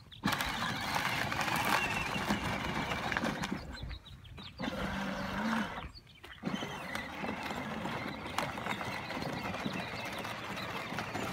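Electric kids' ride-on quad driving over dry dirt and brush, its plastic wheels crunching and rattling along with the motor running, with two short breaks.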